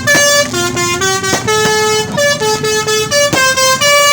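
Indonesian bus 'telolet' multi-tone air horn playing a quick tune, its pitch jumping from note to note several times a second. Two sharp cracks cut through the horn part-way through.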